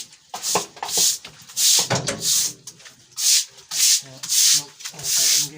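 Stiff brush scrubbing a pig pen during cleaning, in rhythmic strokes of about one and a half a second.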